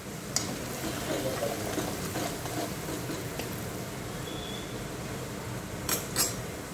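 Spice masala of chilli, coriander, turmeric and garam masala frying in hot mustard oil with garlic paste in a kadhai, sizzling and bubbling steadily as a spatula stirs it. A couple of sharp clicks of the spatula against the pan come near the end.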